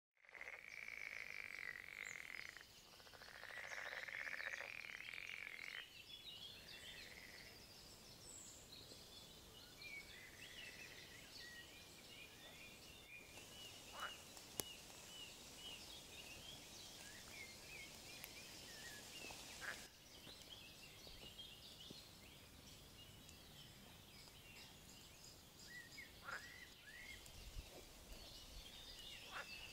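Frogs calling in two long pulsing trills in the first six seconds, followed by many short, high bird chirps and twitters; all faint.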